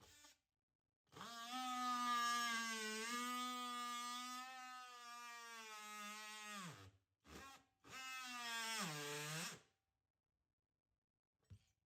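Electric drill motor running in bursts: a steady whine of about five seconds that sags a little under load and winds down when released, a short blip, then a run of under two seconds that drops in pitch as it stops.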